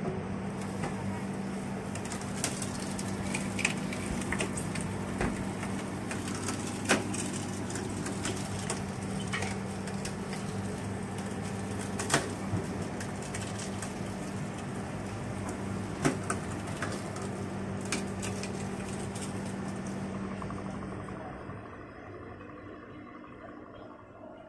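Electric roller sugarcane juice press running with a steady motor hum while sugarcane stalks are fed through its steel rollers, with scattered sharp cracks as the stalks are crushed. The hum stops near the end.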